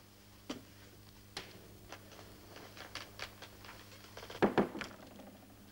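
Faint footsteps and soft knocks of people moving about a room, with a louder knock or thump about four and a half seconds in, over a steady low hum on the old soundtrack.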